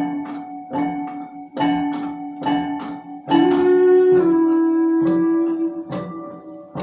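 Guitar music, plucked chords struck in an even rhythm about twice a second. About halfway through, a louder note is held for about two and a half seconds.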